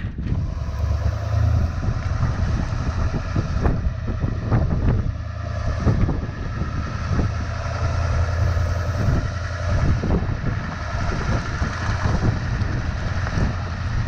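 GMC Sierra Denali HD pickup driving on a snowy road, heard from a camera mounted low on the outside of the truck beside the front wheel: a steady low rumble of engine and tyres.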